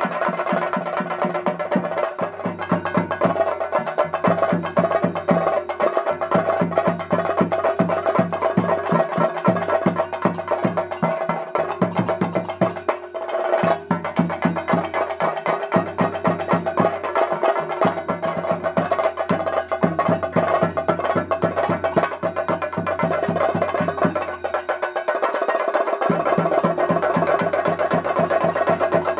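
Fast, continuous traditional percussion music: dense drumming with a metallic ringing over it, of the kind played to accompany a theyyam performance.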